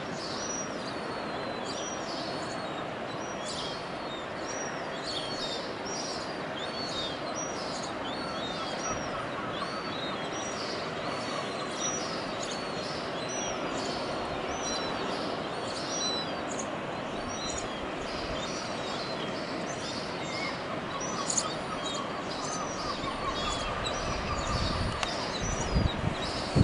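Yellow-legged gull chicks peeping: a run of thin, high calls, about two a second, over steady background noise.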